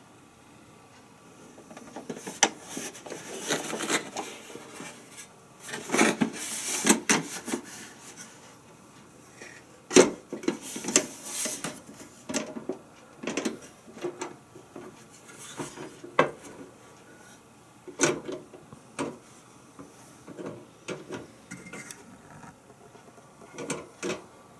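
Handling of a Reese Universal electric contact grill: irregular knocks, clicks and rubbing of its plastic housing and hinged grill plates as it is turned over, set down and its lid opened. A run of rubbing and knocks comes in the first few seconds, and sharp single knocks follow, the loudest about ten seconds in.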